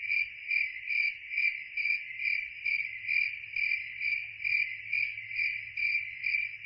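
Crickets chirping on a night, a steady high-pitched chirp repeating evenly at about two chirps a second.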